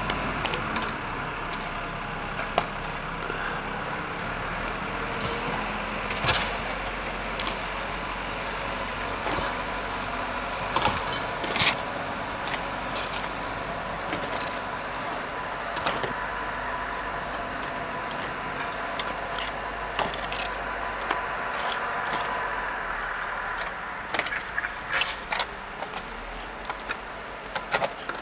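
Snow shovels scraping and knocking in deep snow now and then, with the strikes coming more often near the end, over a steady background hum.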